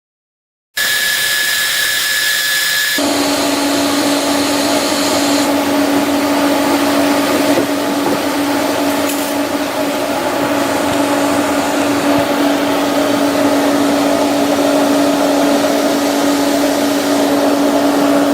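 A small electric motor running steadily, cutting in suddenly about a second in. It starts with a high whine, and about three seconds in this gives way to a lower, even hum that holds to the end.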